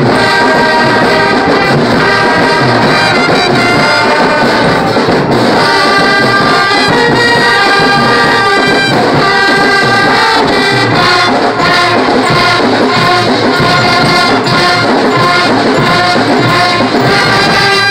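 School marching band's brass section playing a loud, continuous tune with trumpets and trombones, stopping abruptly at the end.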